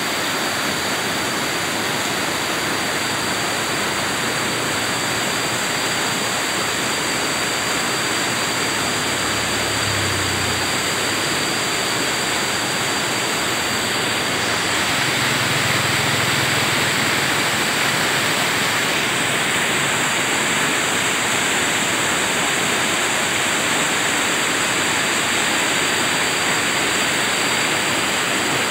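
Shallow rocky river running fast over boulders in small rapids, the white water rushing and splashing in a steady, dense wash of noise.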